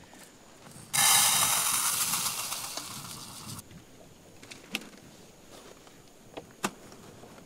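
Portable camping gas stove: a loud hiss of escaping gas starts suddenly, runs for about two and a half seconds and cuts off, followed by two sharp clicks.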